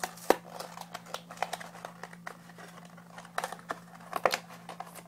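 Packaging of a Pokémon card collection box handled by hand as it is unpacked: scattered crinkles and clicks, the sharpest a little after the start.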